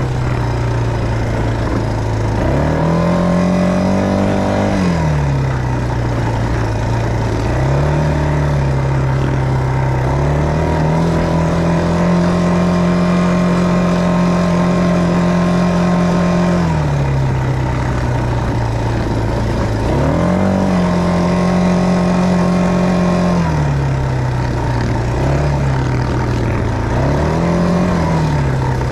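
ATV engine running while the quad is ridden, its pitch rising and falling with the throttle several times, held high for about six seconds midway.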